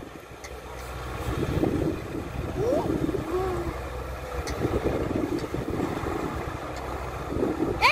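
Dump truck's diesel engine running steadily, a low rumble, while its bed is tipped up to dump a load of soil.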